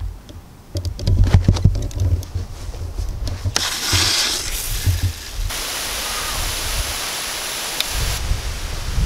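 Wind rumbling on the microphone with a few clicks, then, from about three and a half seconds in, the steady hiss of water spraying from garden sprinklers.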